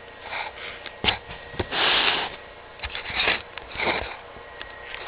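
Handling noise from a plastic airsoft rifle being taken apart: a few sharp clicks and knocks, and several short rustling hisses, the loudest about two seconds in.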